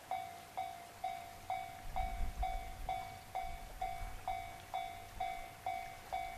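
Japanese railway level-crossing warning bell ringing its electronic 'kan-kan' tone about twice a second, warning of an approaching train. A faint low rumble sits underneath.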